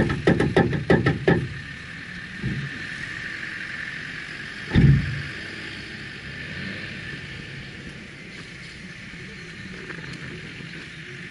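Subaru Forester's flat-four boxer engine idling steadily while the car stands still. In the first second and a half there is a quick run of about eight knocks, and about five seconds in a single loud thump.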